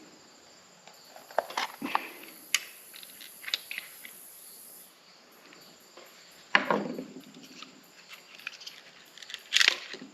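Scattered clicks, knocks and rattles of plastic string trimmer head parts being handled and worked apart by hand, with a louder knock about six and a half seconds in and another near the end.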